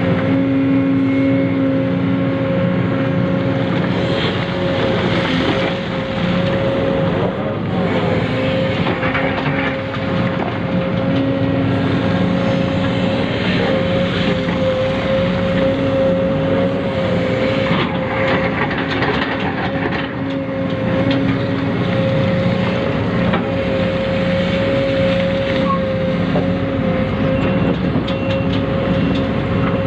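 Small electric motors and gears of radio-controlled model vehicles running steadily, with a constant whine.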